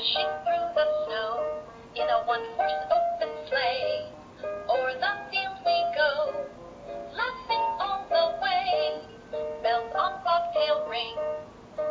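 An English children's song with vocals over a simple electronic backing, played from a push-button sound book's built-in speaker, sung in short phrases with brief breaks between them.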